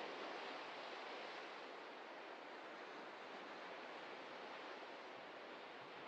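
Ocean surf: an even wash of breaking waves, easing a little over the first two seconds.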